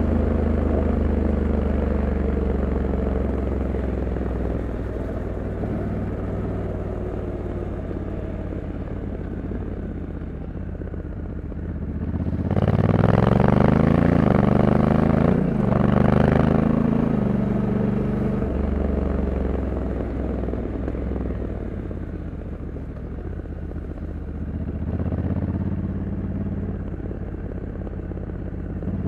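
Honda Africa Twin 1100's parallel-twin engine heard while riding. It eases off over the first ten seconds, then accelerates hard about twelve seconds in, its note rising and stepping down twice as the automatic dual-clutch gearbox shifts up. It then settles back to an easy cruise, with a brief pick-up near the end.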